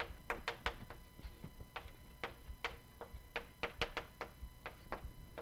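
Chalk tapping and clicking on a blackboard as someone writes: an irregular run of sharp taps, several a second.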